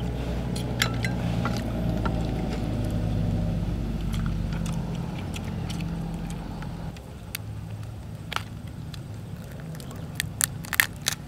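Shells of cooked giant freshwater prawns cracking and snapping as they are peeled and broken apart by hand, a scatter of sharp clicks with the loudest cracks near the end. Under them runs a steady low rumble that drops away about seven seconds in.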